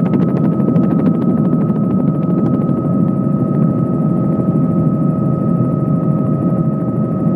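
A helicopter in flight, heard from on board: steady engine and rotor noise with a fast, even beat of the blades and a thin, steady whine above it. The blade beat grows fainter about three seconds in.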